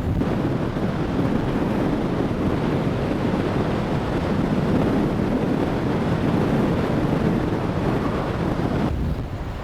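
Strong tropical-storm wind buffeting the microphone in a continuous rumble, with surf breaking beneath it; it eases slightly near the end.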